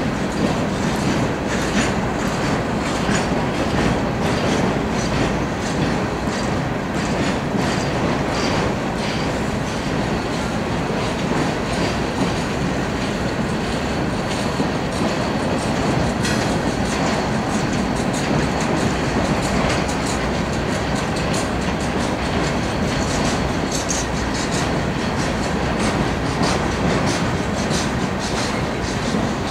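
Empty coal train's open hopper cars rolling slowly past: a steady rumble with repeated wheel clacks.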